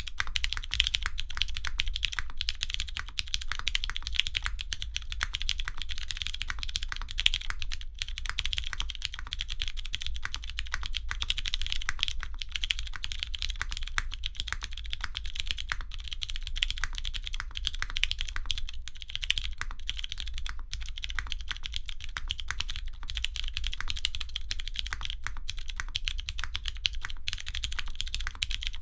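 Continuous fast typing on a custom mechanical keyboard with lubed and filmed Cherry MX Brown tactile switches and GMK keycaps: a dense, steady stream of keystrokes with a few louder clacks along the way.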